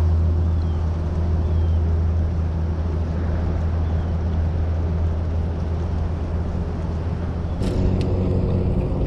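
A motorboat engine running with a steady low hum; its note shifts about three-quarters of the way in, and a few sharp clicks come near the end.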